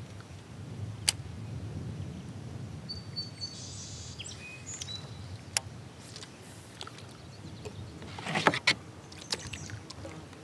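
Quiet sounds of a fishing kayak being handled on calm water: a few sharp knocks of gear or paddle against the plastic hull and a short splashing swish of the paddle near the end, with small birds chirping faintly in the background.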